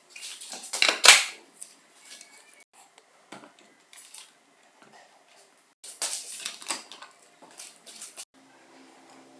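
Small metal parts and tools clinking and clattering as they are handled and set down, in short separate bursts, the loudest about a second in.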